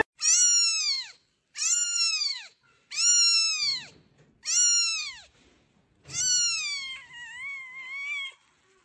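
Very young kitten mewing: five high-pitched cries about a second and a half apart, each rising then falling, the last one drawn out and wavering.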